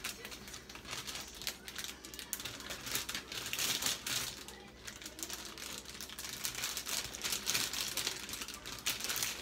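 Thin plastic bag of pancake mix crinkling and rustling as it is shaken and emptied into a metal bowl, with quick, irregular crackles.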